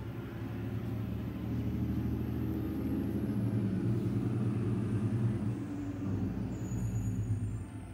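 Small portable air compressor running with a steady motor hum, louder from about two seconds in and easing off near the end.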